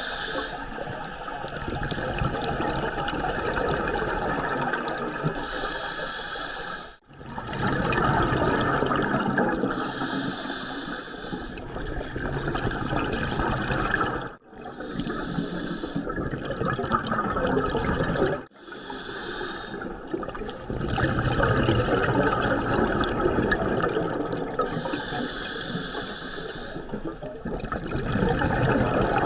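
Scuba diver's breathing through a regulator underwater: a short, high hiss of inhalation every four to five seconds, each followed by a long rush of exhaust bubbles. The sound cuts out abruptly three times.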